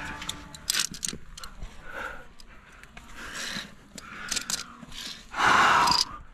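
A climber breathing hard on a via ferrata, with scattered metallic clicks and scrapes of climbing gear and a loud rush of breath or air on the microphone about five seconds in.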